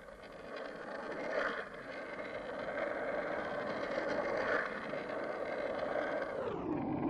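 Skateboard wheels rolling over rough asphalt, a steady rumble that grows louder as the board picks up speed and deepens shortly before the end.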